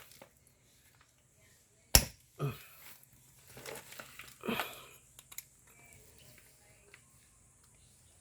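Hand work on parts: one sharp click about two seconds in, a softer knock right after, then a few scraping, rustling handling sounds and two small clicks before it goes quiet.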